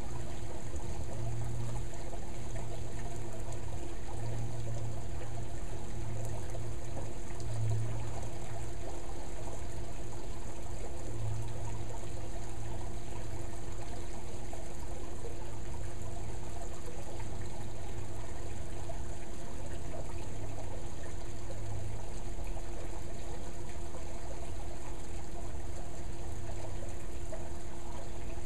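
Water pouring and trickling steadily, with a faint steady hum under it.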